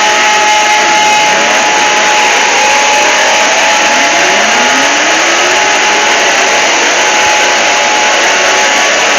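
Fan-made 'end of the world' Emergency Alert System alarm, very loud and heavily distorted: a dense hissing wash with a steady high tone, and overlapping tones that sweep upward in pitch through the first half.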